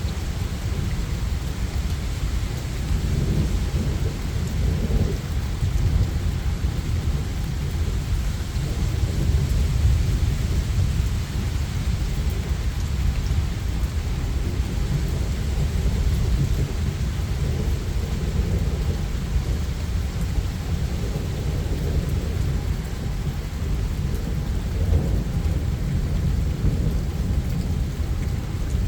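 Steady rain with continuous low rolling thunder underneath, the rumble swelling and easing slightly without any sharp cracks.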